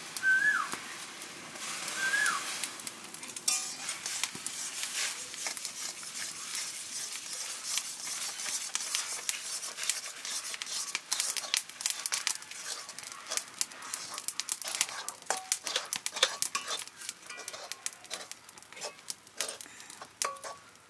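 Water simmering with a hiss in a steel wok, then rice flour stirred into it, a metal spatula scraping and clicking against the pan many times. A bird chirps twice near the start.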